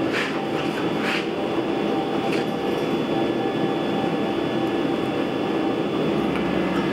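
A steady rushing noise of shop machinery with a faint hum, plausibly a running forge. Near the start come three short scraping sounds as hot steel is bent with tongs around the pins of a bending jig held in a vise.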